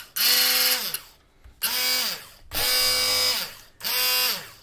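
Electric hand blender's motor switched on in four short bursts, each whirring up in pitch, holding briefly and winding back down. It runs unloaded, with the blade head held in the air out of the water.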